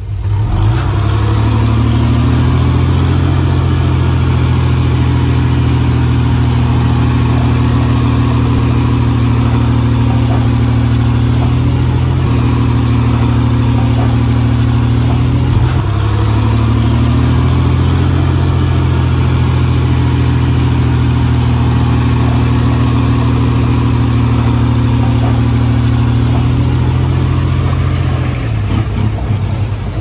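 A Komatsu D20A bulldozer's diesel engine runs steadily at working speed. Its note dips briefly about halfway through and falls away near the end.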